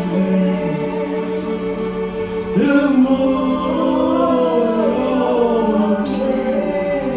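Slow gospel worship singing: voices hold long notes, and a new sung phrase comes in about two and a half seconds in.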